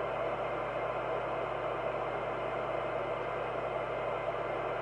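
Skiptech TI4000FM FM CB radio's speaker hissing steadily with the squelch open and no signal coming in: the plain receiver noise of an FM set as the squelch is brought back down toward threshold.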